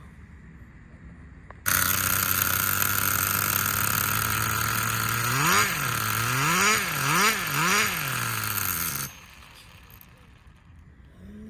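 Small nitro glow engine of a 1/10 scale RC car running at a steady idle, then revved up and down four times in quick succession. It starts and stops abruptly.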